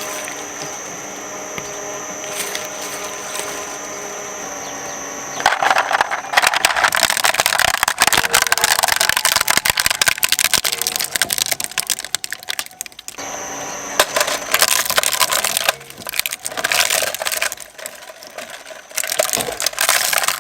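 Shredder motor running steadily with a hum, then about five seconds in a loud crackling crunch as something is fed in and torn apart. The crunching carries on in bursts with short breaks.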